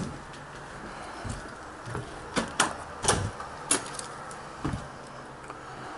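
Scattered sharp knocks and thuds, about six of them and the loudest a little after two and three seconds in, over a steady low hiss.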